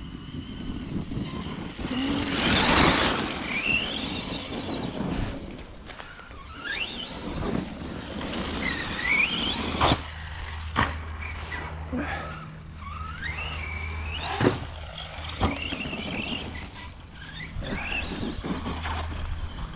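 Brushless electric RC truck being driven hard over dirt: the motor's whine climbs and drops again and again with the throttle, with a loud burst of spinning tyres and churned dirt near the start and several sharp thumps of jump landings in the second half.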